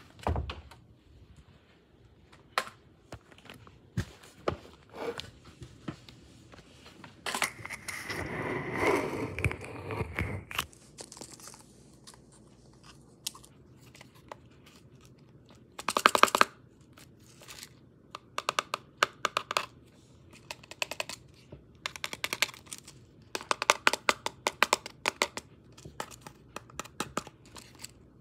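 Hands handling a small white cardboard gift box: scattered taps and clicks of card, a longer stretch of rustling and tearing about seven to ten seconds in, a loud clatter of handling about sixteen seconds in, and quick runs of clicks near the end.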